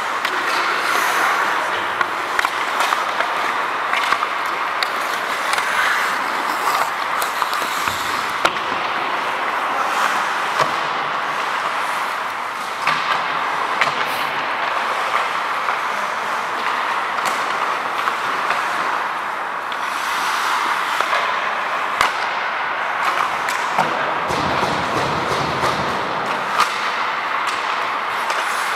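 Ice hockey in play heard from a skating referee: skate blades scraping the ice over a steady rushing noise, with frequent sharp clacks of sticks and puck.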